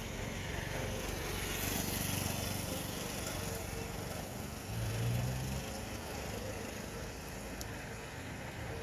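Steady outdoor background noise with a low hum that swells briefly about five seconds in.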